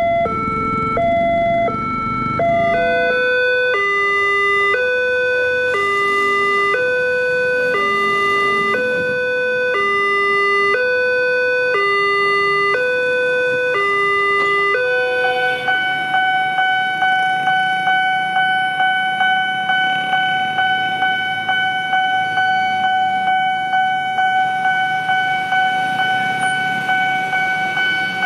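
Electronic warning alarms of railway level crossings. First a two-note alarm alternates quickly between a high and a low note. About three seconds in it changes to a slower, lower two-note alternation. About fifteen seconds in that gives way to a single steady tone that pulses about twice a second.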